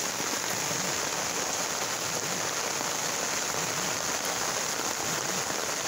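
Steady rain falling on an umbrella held over the microphone, an even hiss with no break.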